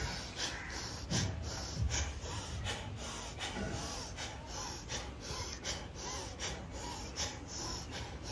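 A woman doing rapid, forceful bhastrika-style breathing in an ice bath, hard inhales and exhales in a quick, even rhythm of about three breaths a second.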